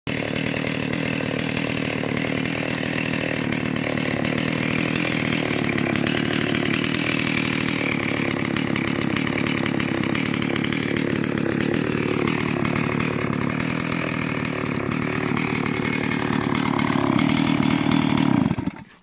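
Stihl 038 Magnum two-stroke chainsaw with a newly fitted Chinese replacement engine, still being run in, idling steadily with no one holding it. It gets a little louder near the end, then cuts off abruptly as it is switched off.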